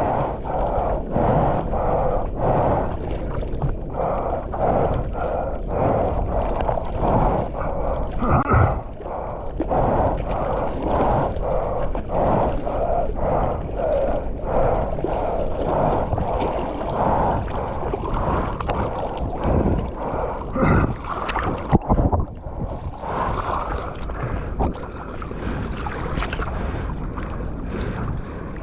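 Water splashing and sloshing close to the camera in the surf, in a quick, repeated rhythm of about one to two splashes a second, with wind noise on the microphone.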